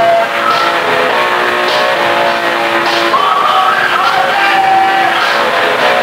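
Punk rock band playing loud, with distorted electric guitar, drum and cymbal hits, and a voice singing over it.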